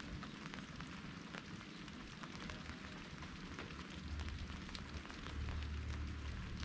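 Light drizzle pattering on a surface, with many small drops ticking. About two-thirds of the way through, a low rumble comes in and grows.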